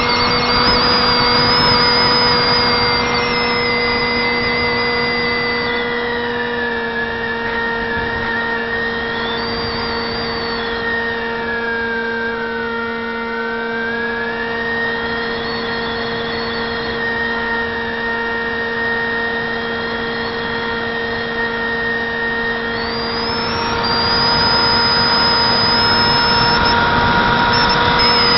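Brushless electric motor and 6x4 pusher propeller of a Zeta Wing Wing Z-84 flying wing whining in flight, with wind rush, heard from a camera on the airframe. The whine falls in pitch and loudness a few seconds in, dips lowest near the middle, and climbs back higher and louder near the end.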